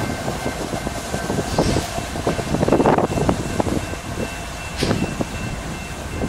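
Freight train moving past led by BNSF diesel locomotive 1050: a steady engine and wheel rumble with irregular metallic clanks and knocks, and a faint steady whine.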